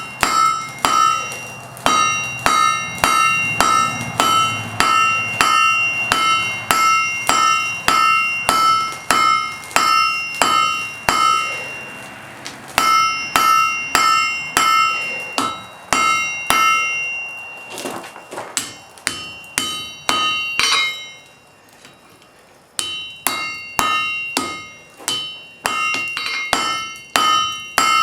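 Blacksmith's hammer striking hot wrought iron on an anvil to draw out the bar, two to three ringing blows a second. The run breaks off briefly near the middle and again for a couple of seconds about two-thirds in, then resumes.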